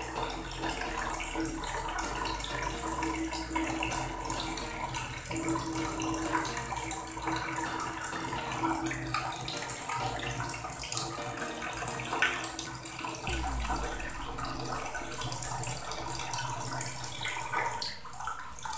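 Tap water pouring in a steady stream from a faucet-mounted water filter into a bucket, splashing on the shallow water at its bottom.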